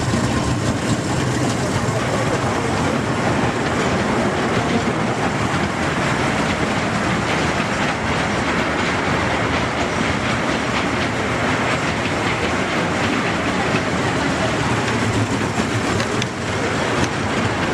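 Kiddie-ride train running round its circular steel track, its wheels rattling steadily on the rails, heard from aboard one of its cars.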